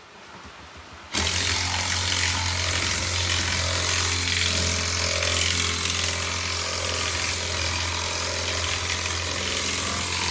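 A power tool starts suddenly about a second in and runs steadily, a low hum under a broad hiss, as a race car's torque converter is being taken apart for a rebuild.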